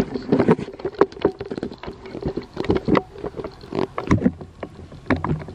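Irregular knocks, clicks and rubbing noises from close handling of the microphone, as when a handheld camera is moved about.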